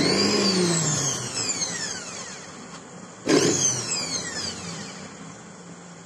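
Mixer grinder's motor run in short bursts with no jar fitted, a high whine that starts suddenly and then falls in pitch as the motor winds down, starting again about three seconds in. It is a test run after the coupler was replaced, with the mixer working properly.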